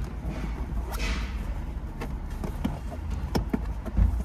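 Handling noise as a dash cam power cable is pressed into the windshield pillar trim and headliner edge: a rustling swish about a second in, a few light clicks, then a thump near the end.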